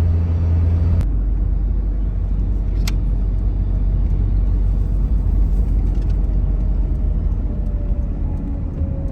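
Steady low rumble of a GAZelle van driving, heard from inside the cab, changing character about a second in.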